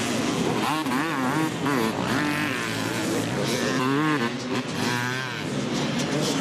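Several motocross dirt bikes racing, their engines revving with a pitch that rises and falls again and again as the throttles open and close.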